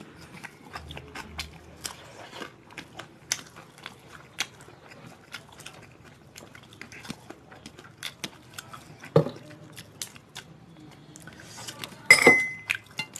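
Close-up eating sounds: fingers mixing rice and curry on stainless steel plates, with chewing and many small clicks and taps. About twelve seconds in, a stainless steel bowl clangs against a steel plate and rings briefly.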